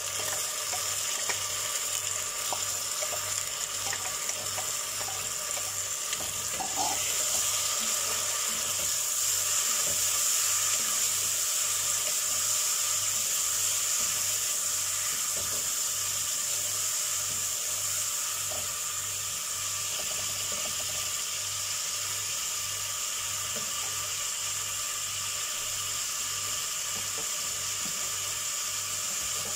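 Onions, tomatoes and freshly added ginger-garlic-green chilli paste frying in oil in a pot: a steady sizzle that grows a little louder about seven seconds in, with the odd light tick of a wooden spatula stirring.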